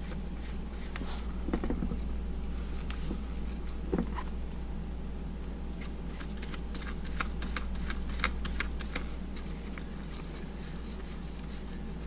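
Light metallic clicks and small knocks as a gloved hand spins the 46 mm rear axle nut onto the axle threads of a 2015 Ducati Hyperstrada's single-sided swingarm, with a duller knock about a second and a half in and another about four seconds in, and a quick run of clicks about seven to nine seconds in. A low steady hum underneath.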